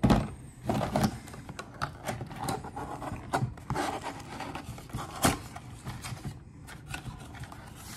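Small cardboard trading-card box handled and opened by hand: the top flap is pried up, with rubbing, scraping and small clicks of the cardboard. A thump right at the start and a sharp click about five seconds in stand out.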